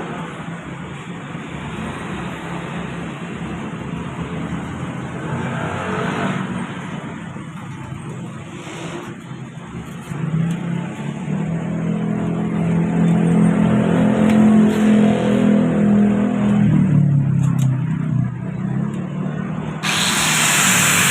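Car engine running, then revved up about ten seconds in and held at higher revs for several seconds before easing back. A loud hiss starts abruptly near the end.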